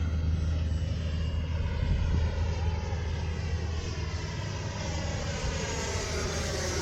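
The electric ducted fan of an FMS F-86 Sabre 80mm RC jet, rushing steadily as the plane flies. Near the end a high fan whine grows stronger.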